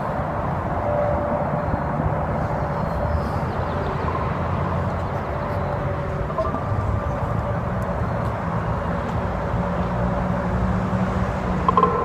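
Steady low rumbling drone with a few faint held tones above it: the unexplained sound heard as coming from the sky.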